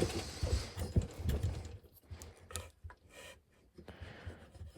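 Scattered light knocks and clicks of metal parts of a small lawn mower engine being handled and pulled apart, with a brief hiss near the start.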